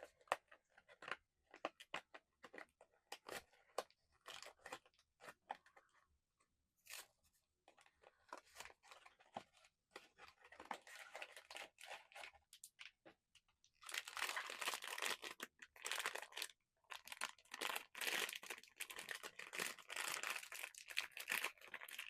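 A blind box being opened by hand, its inner foil bag torn open and crinkled: scattered light crackles and taps at first, then several seconds of dense crinkling in the last third.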